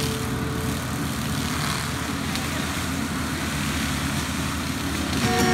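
Kubota SVL95 compact track loader running steadily with its forestry mulcher head, a continuous heavy machine noise of diesel engine and spinning mulcher drum.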